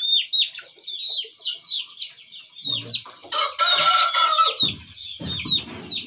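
A rooster crows once, for about a second, a little past the middle, over constant quick, high cheeping of small birds.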